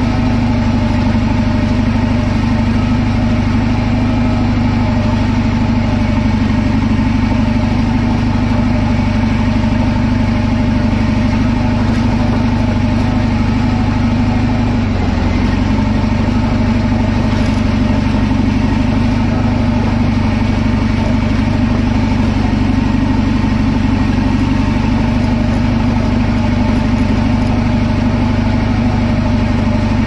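Caterpillar D11 bulldozer's diesel engine running steadily, heard close to its twin exhaust stacks. The engine note dips briefly about halfway through, then holds steady again.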